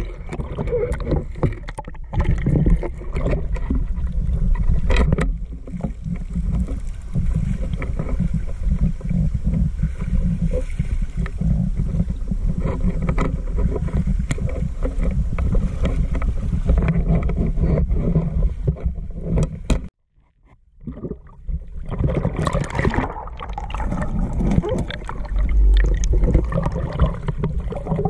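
Water sloshing and splashing around someone moving through a river, mixed with a heavy low rumble and scattered knocks and rustles. The sound cuts out suddenly for about a second two-thirds of the way through, then picks up again.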